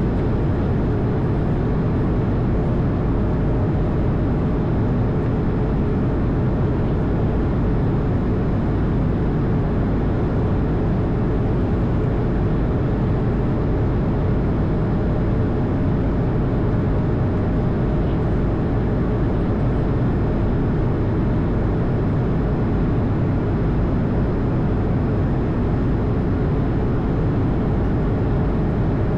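Steady drone of an Airbus A220 heard from inside the aircraft: the noise of its Pratt & Whitney geared turbofan engines and airflow, deep and even, with a faint steady hum above it.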